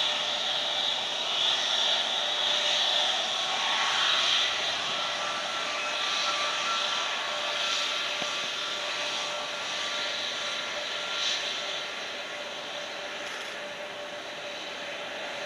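Airbus A321neo's two turbofan engines at low taxi thrust: a steady high whine over a broad rumble, fading somewhat as the airliner turns away onto the runway.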